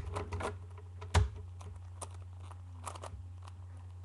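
Plastic pieces of a LanLan 4x4 puzzle cube clicking and knocking as the cube is handled and put back together, with one louder knock about a second in. A steady low hum runs underneath.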